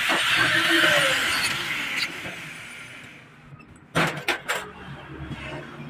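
Angle grinder grinding a brass radiator filler neck, its harsh grinding noise fading away over about three seconds. About four seconds in, a few sharp metallic clanks as metal is knocked against the workbench.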